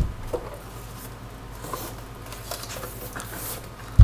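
Hands working at the stiff cover of a QNAP TS-221 NAS enclosure, with light scrapes and soft clicks as it refuses to slide off. A sharp knock comes near the end.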